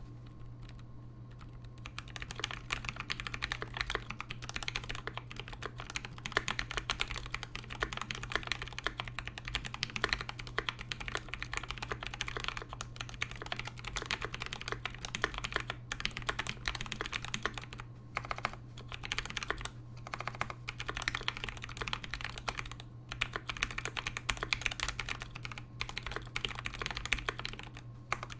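Fast, continuous typing on a KBD67v2 mechanical keyboard with a brass plate, Zealios v2 67g tactile switches and Cherry stabilizers lubed with Krytox 205g0, and GMK keycaps. The typing starts about two seconds in and breaks off briefly a few times. A steady low hum runs underneath.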